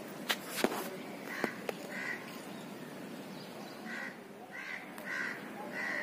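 Crows cawing, a string of short repeated caws from about a second and a half in. A few sharp clicks come near the start.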